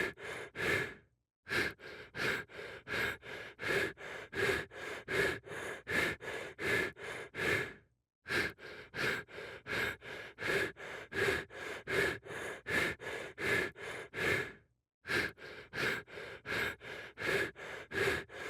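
Rapid panting sound effect: quick, even breaths at about three a second, looped, with a short break about every seven seconds where the loop restarts.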